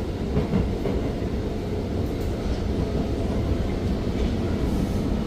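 Interior of an Alstom Movia R151 metro train running between stations: a steady low rumble of wheels on rail and running gear, with a few faint clicks.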